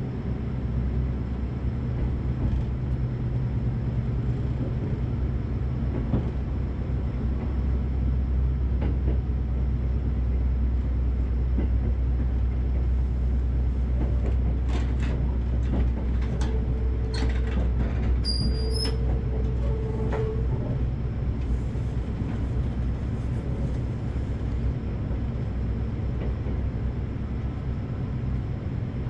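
Train running on rails: a steady low rumble, with a few sharp clicks and a brief steady whine about halfway through.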